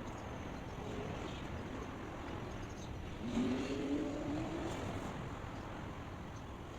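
Steady outdoor background hiss, with a distant motor vehicle's engine rising in pitch as it speeds up, about three seconds in, for a second or two.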